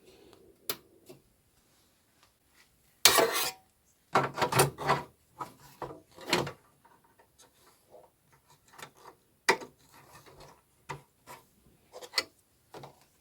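Hands fitting a ribbon cable and compact flash drive to a computer controller card: rubbing, scraping and clicking of plastic and metal parts, loudest about three seconds in and again from about four to six and a half seconds, with lighter clicks after.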